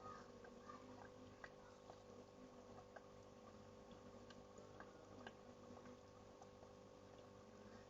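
Near silence: a faint steady hum with scattered soft ticks and clicks.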